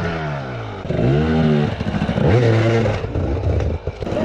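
Enduro motorcycle engine revving up and down in repeated surges under load while climbing a steep rocky section, dropping away briefly near the end.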